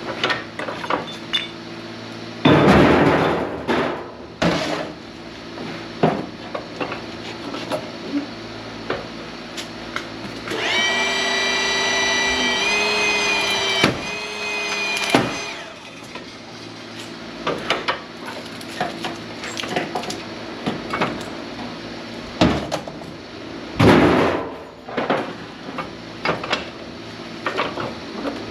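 Scrap metal being worked: repeated knocks and clanks, with two loud impacts about two and a half seconds in and near the end, over a steady machine hum. A powered tool whines for about three seconds around the middle, shifting up in pitch partway through.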